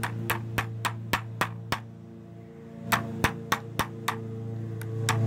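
Small hammer tapping a little Phillips-head screw through the plastic bed of a toy pickup truck: quick light taps, about three to four a second, in a run of about seven, then after a pause of about a second another run of about five and two more near the end.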